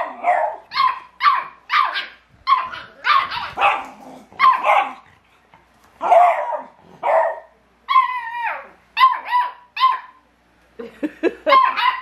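Beagle puppies barking and yapping in play: a rapid string of short, high-pitched barks, about two a second, with one longer call falling in pitch about eight seconds in and a brief pause a couple of seconds later.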